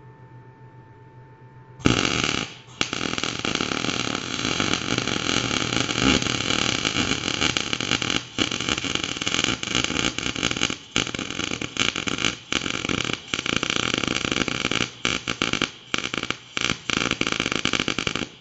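Electric arc welding: the arc strikes about two seconds in and crackles and spatters steadily, with several brief breaks where the arc stops and restarts, then cuts off at the end. The weld is fixing a base onto a camshaft.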